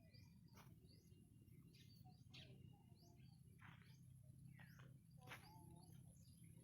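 Faint bird chirps, short calls about once a second, some sweeping quickly down in pitch, over a low steady hum.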